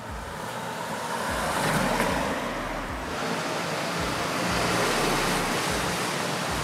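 Cars driving by on a wet street, their tyres hissing on the wet pavement; the noise swells to its loudest about five seconds in and eases off near the end.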